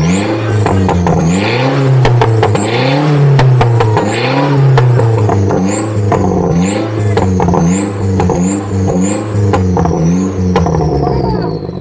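Off-road 4x4's engine being revved over and over, its pitch rising and falling in long swells at first and then in quicker blips from about six seconds in, with a high whine that follows the revs. The revving eases off near the end.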